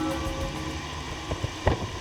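Background music tailing off under a steady low rumble, with one sharp knock near the end.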